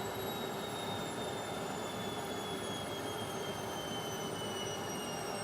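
Indesit washing machine on its spin cycle: a steady rushing hum from the spinning drum, with a high motor whine that falls slowly in pitch.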